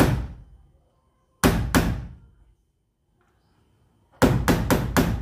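Hammer blows on a hardened steel nail, punching a pilot hole in a Mahindra Bolero's sheet-metal body above a window. There is one blow at the start, two more about a second and a half in, then a quick run of four near the end, each ringing briefly.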